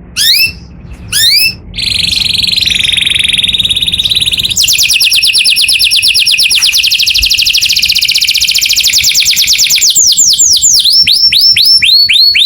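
Canary singing loudly in a continuous song: a few quick downward-sweeping notes, then a long run of very fast rolled trills, and near the end a series of repeated downward-sliding whistles.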